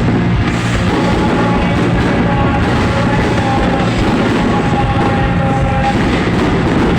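Loud music with a few held notes over a dense, continuous sound.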